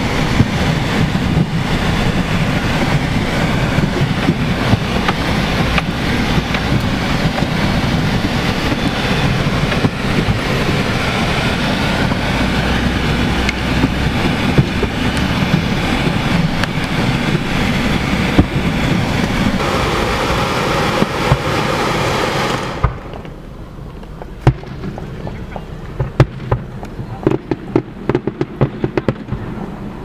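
Aerial fireworks going off. A loud, steady rush of noise fills most of the stretch, then cuts off abruptly about 23 seconds in. After that comes a quick run of sharp bangs and crackles from the fireworks.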